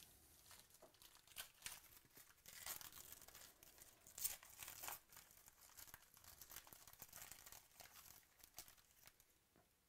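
Foil trading card pack wrapper being torn open and crinkled by hand: faint crackling and tearing, loudest about four seconds in.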